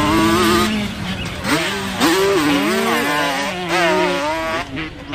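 Motocross dirt bike engine running hard on the track. Its note is steady at first, then dips and rises several times as the rider works the throttle.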